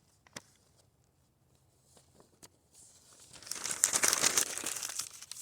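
Paper being crumpled by hand, a dense crinkling that starts about three seconds in, after a few faint clicks.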